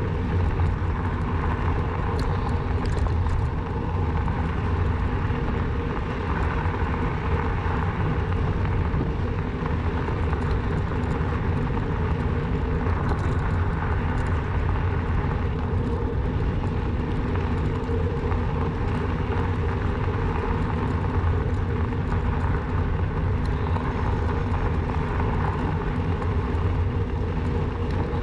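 Steady riding noise from a bicycle on the move: wind on the microphone and tyre rumble, heaviest in the low end and unbroken throughout.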